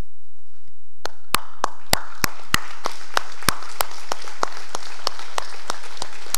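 A congregation applauding, starting about a second in. A few nearby claps stand out as a steady beat of about three a second.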